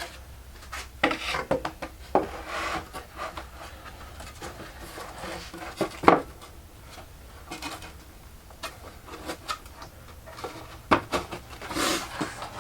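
Wooden guitar body being rubbed back and forth on sandpaper laid over a granite slab, leveling its edge, in irregular scraping strokes with occasional wooden knocks, the sharpest about six seconds in.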